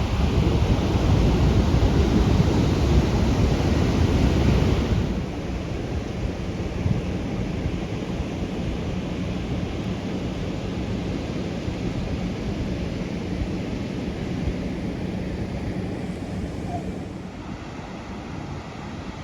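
Ocean surf from a typhoon swell rushing and breaking, with wind buffeting the microphone. The sound is loudest for the first five seconds, then drops abruptly, and falls again near the end.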